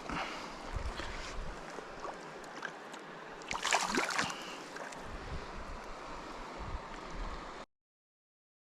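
Outdoor water sound with wind rumbling on the microphone. A louder rush comes about three and a half seconds in. The sound cuts off abruptly about a second before the end.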